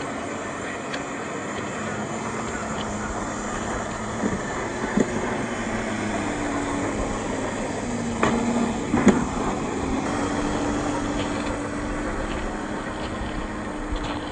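RC crawler trucks with brushed 540-size 27-turn motors driving over gravel: a steady electric motor and gear whine that steps up and down in pitch as the throttle changes, over a noisy crunch of tyres on loose stones. A few sharp clicks and knocks come about four to five seconds in and again around eight to nine seconds, the loudest about nine seconds in.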